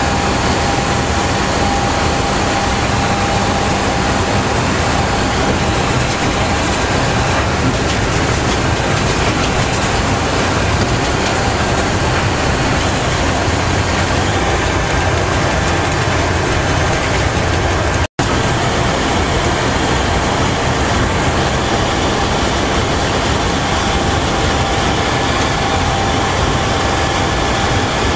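Inside the cab of a BDZ class 44 Škoda electric locomotive running at speed: a loud, steady running din with a faint constant whine over it. It drops out for an instant about two-thirds of the way through.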